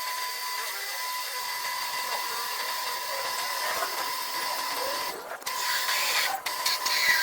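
A power tool's motor running steadily with a high, even whine. About five seconds in it breaks up into short gaps and a few sharp clicks and knocks.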